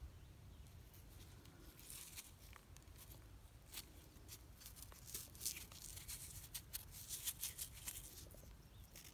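Faint, irregular rustling and scratchy clicks from a hand handling a broken stone point fragment close to the microphone, busiest from about two seconds in until near the end.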